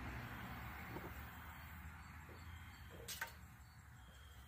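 Quiet low hum with a few soft taps and one sharp click a little over three seconds in, from a feeler gauge and tools being handled at the rocker arms of a Predator 212 engine during a valve lash adjustment.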